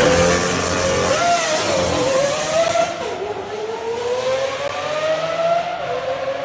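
A high-revving car engine accelerating hard. Its pitch climbs steadily and drops back sharply at each gear change, about a second in, about three seconds in, and again near the end.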